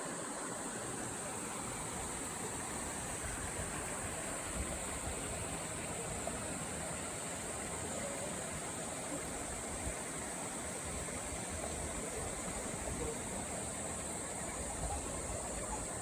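Stream water running steadily, a continuous rushing hiss, with a steady high-pitched hiss held above it.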